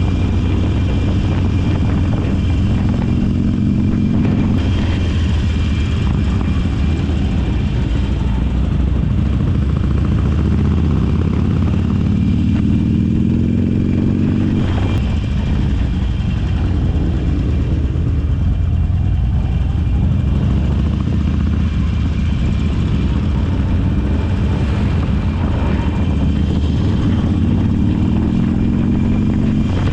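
Harley-Davidson V-twin motorcycle engine running under way, with several rising sweeps as it accelerates through the gears, over steady wind and road rush.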